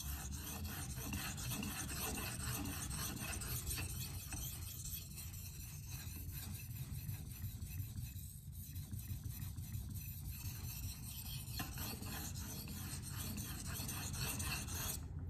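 LC200N steel blade of a Spyderco Waterway knife stroked repeatedly across a Naniwa Pro water stone: a fast, rhythmic scraping that stops abruptly near the end.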